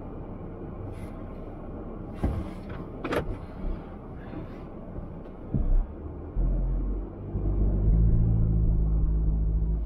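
Car running at idle, with a few sharp clicks and a brief squeak. About six seconds in, a much louder low engine rumble takes over as the car starts to pull forward in snow, and it cuts off abruptly.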